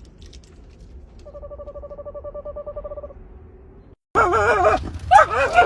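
A screech owl giving a rapid, even trill on one pitch for about two seconds. After a short break, a dog whines loudly in wavering, rising and falling cries.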